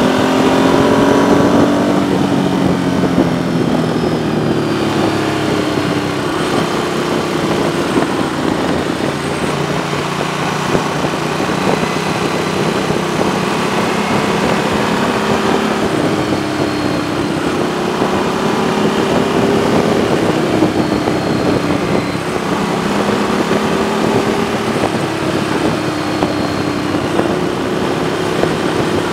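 Motorcycle engine heard from on board while riding, its pitch rising and falling gently with the throttle, over a steady rush of wind noise.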